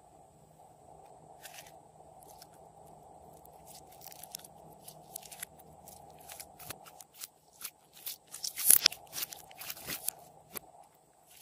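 Soft yellow slime being stretched and squeezed by hand, giving quick crackling clicks and pops that grow denser and louder in the last few seconds.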